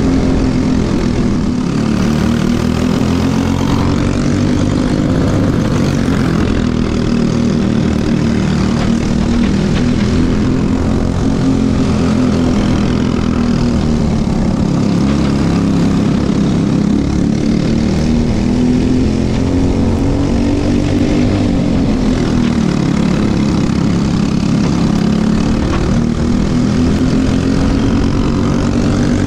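Briggs & Stratton LO206 single-cylinder four-stroke kart engine running at race speed, heard onboard, its pitch rising and falling several times as the kart speeds up and slows through the track's bends.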